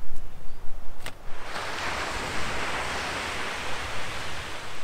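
Wind buffeting the microphone, with a sharp click about a second in, then a steady rushing hiss of wind and surf.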